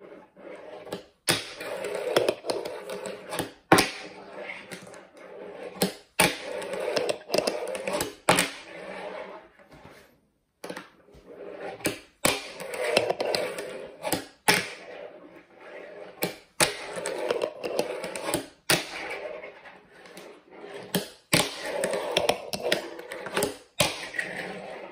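Fingerboard with Blackriver trucks and wheels on a wooden ramp: the wheels roll along the wood in runs of about two seconds, broken by sharp clacks of the board popping and landing during flip tricks.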